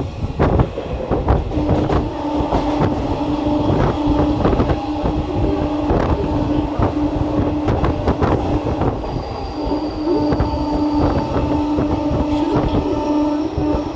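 Train running on the rails: an irregular clatter of wheels over rail joints, with a steady hum under it that drops out briefly a little past the middle.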